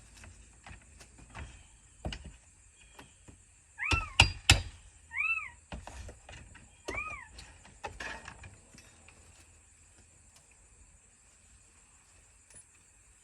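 Sharp knocks of a tool on siding nails, the loudest a couple about four seconds in, while nails are pulled from a piece of vinyl siding. Three short squeals that rise then fall come about four, five and seven seconds in.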